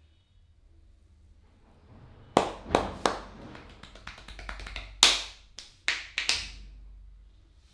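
Barber's hands slapping and tapping on the head during a head massage: after a quiet start, a quick run of about seven sharp claps with lighter taps between them, the loudest about five seconds in.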